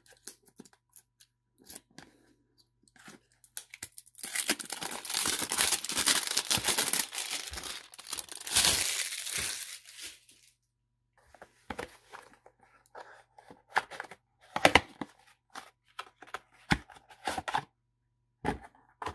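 Plastic shrink wrap being torn and crinkled off a cardboard card-deck box: several seconds of continuous tearing and crackling in the middle, then scattered short crinkles and taps as the box is opened and its contents handled.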